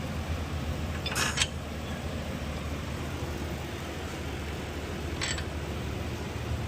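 Two brief metallic scrapes of tool and parts on the truck's hub assembly, one about a second in and a shorter one about five seconds in, over a steady low hum of shop noise.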